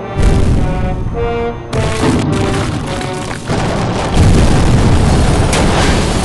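Dramatic film-score-style music with held chords, punctuated by deep booms: one just after the start, another a little under two seconds in, then a heavier rumbling boom from about four seconds in.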